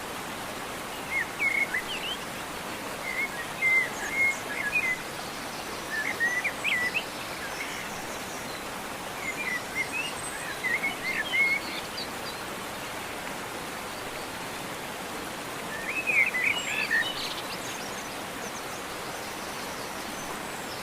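Songbirds chirping in short bursts of quick, twittering notes every few seconds over a steady outdoor hiss. The liveliest burst comes about sixteen seconds in.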